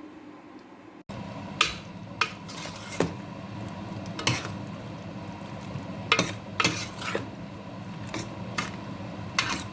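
Potato pieces frying with spices in a pan while a utensil stirs them: a steady sizzle with irregular sharp clinks and scrapes of the utensil against the pan, starting suddenly about a second in.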